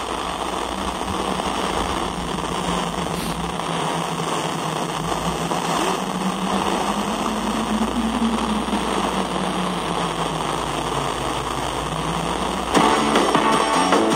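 Steady FM static hiss from a Sangean portable receiver's speaker as a weak, distant station on 97.9 MHz fades into noise, with only a faint trace of programme audio underneath. Near the end the station's audio comes back louder out of the static.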